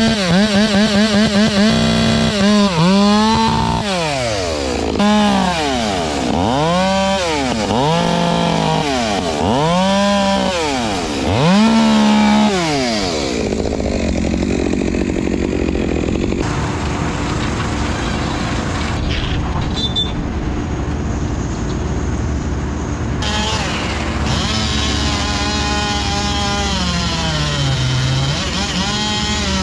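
Two-stroke chainsaw cutting through a felled log, its engine revving up and falling back again and again for the first dozen seconds, then running more steadily under load with a few abrupt changes.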